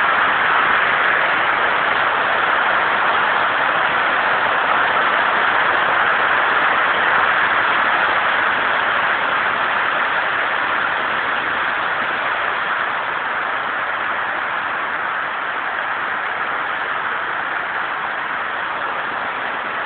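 Heavy rain shower pouring steadily, heard from under a carport, easing off slightly in the last third.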